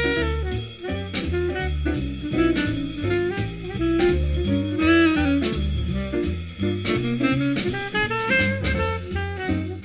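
Background jazz music: a saxophone melody with bending notes over a walking bass line and drum kit.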